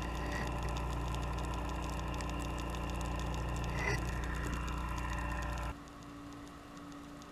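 Steady underwater hum of boat machinery with several steady tones and faint crackling clicks, heard through a camera housing on the seafloor. About three-quarters of the way through it cuts suddenly to a much quieter hum with one steady low tone.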